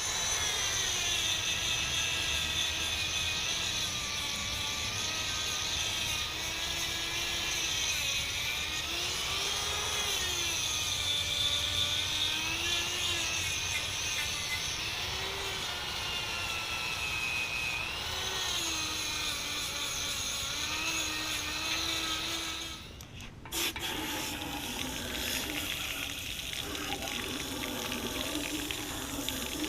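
Electric drill spinning a wire wheel against a cast-iron engine block. Its motor whine rises and falls in pitch as the wheel is pressed harder and eased off. It stops briefly about three-quarters of the way through, then starts again at a lower, rougher pitch.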